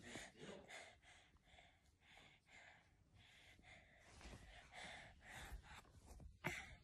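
Near silence, with a toddler's faint, soft breaths and sighs close to the microphone.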